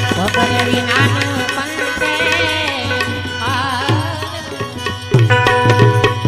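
Instrumental interlude of a Gujarati devotional bhajan: an Indian banjo (bulbul tarang) plays a wavering, ornamented melody over a steady tabla rhythm and a low sustained drone.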